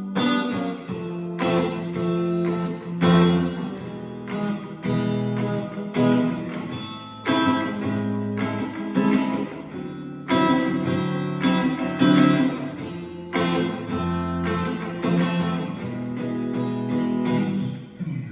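Electric guitar with single-coil pickups played clean, a chord struck roughly every second or so and left to ring. The last chord dies away at the end.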